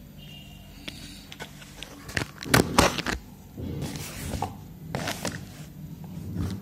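A cardboard shipping box being handled and turned over, giving scrapes, rustles and a few sharp knocks that are loudest between about two and three seconds in. A low steady hum runs underneath.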